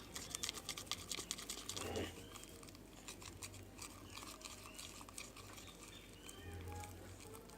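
Sticky glue-and-soap slime being stirred in a bowl with a spoon: quick wet clicks and squelches come thick and fast for the first two seconds, then turn sparser and softer.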